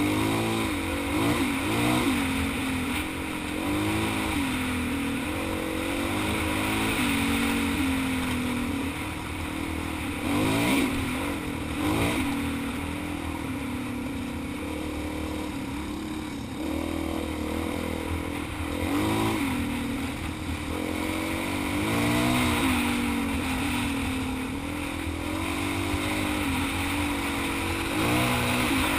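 Dual-sport motorcycle engine under way off road, its pitch rising and falling over and over with throttle and gear changes, with wind noise over the microphone.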